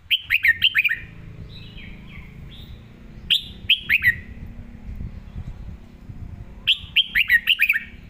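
Red-whiskered bulbul singing in the doubled-note 'เบิ้ล' style: three short bursts of quick, falling notes, one at the start, one near the middle and one near the end, with fainter calls in between.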